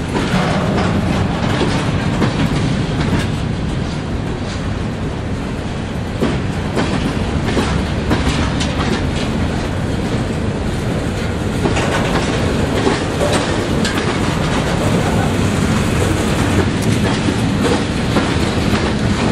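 Train cars rolling past close by: a continuous rumble with wheels clicking over the rail joints in an irregular clatter.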